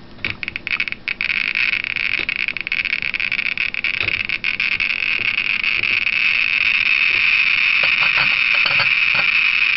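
CD V-700 Geiger counter with an LND 7311 pancake probe, clicking at radiation from the uranium-glazed red Fiesta ware. The clicks come faster over the first few seconds and merge into a dense, steady crackle of about 24,000 counts per minute.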